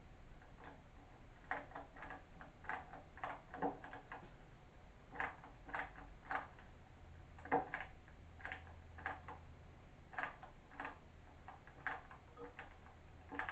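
Irregular light clicks and knocks of hand work with a screwdriver and small parts, in loose clusters of a few a second, starting about a second and a half in.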